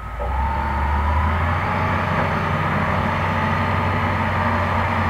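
Hitachi Zaxis 350 excavator's diesel engine and hydraulics coming up to a steady working drone about a third of a second in, with a faint rising whine, as the machine swings its upper body round.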